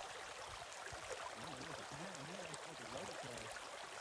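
Faint, steady rush of a stream, with a faint low warbling sound rising and falling in the middle.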